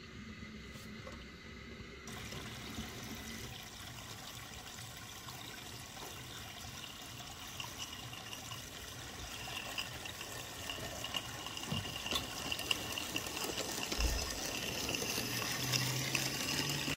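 Water trickling and splashing from a garden pond's rockery water feature, a steady rush that slowly grows louder toward the end.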